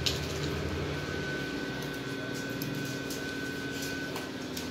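Steady mechanical hum with a faint high whine held throughout, and a few soft clicks and rustles.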